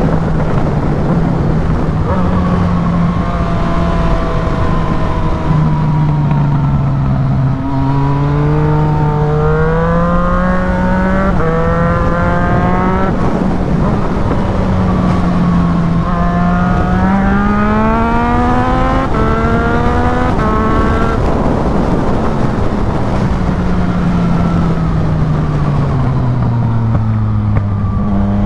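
Yamaha MT-09's 847 cc crossplane inline-three with a Black Widow full exhaust, accelerating hard and rising in pitch through a run of quick upshifts, then falling in pitch as the bike slows near the end, over steady wind noise.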